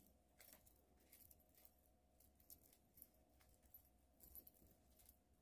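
Near silence, with faint, scattered light clicks of a small metal key ring and its hardware being handled while a cord is threaded onto it.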